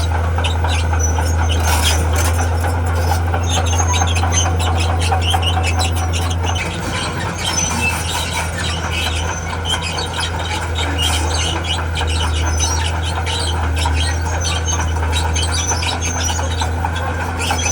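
Diesel engine of a tracked earthmover running steadily under load, with its steel tracks squealing and clanking as it moves. The engine note drops and changes about six and a half seconds in.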